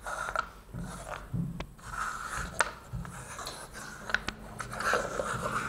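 Paper cups sliding and scraping across a tabletop as they are shuffled, with a few sharp taps as they are picked up and set down.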